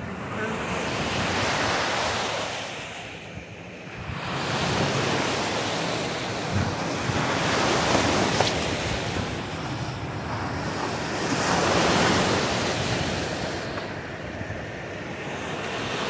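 Small waves breaking and washing up a sandy shore in rising and falling surges, with wind buffeting the microphone. About halfway through comes a short slap as a skimboard is thrown down onto the wet sand.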